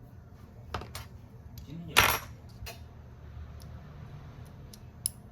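Small hard tools or parts clicking and clattering on a hard work surface: two light clicks, then one loud clatter about two seconds in with a smaller knock after it, and a sharp click near the end, over a low steady hum.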